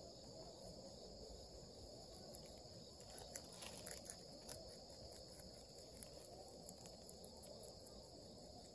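Faint, steady, high-pitched insect chorus, with scattered soft clicks of a rabbit chewing leaves, most of them around the middle.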